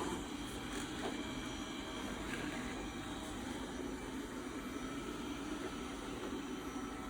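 Dreame D9+ robot vacuum running: a steady whir of its suction fan and brushes, with a few faint clicks in the first second or so.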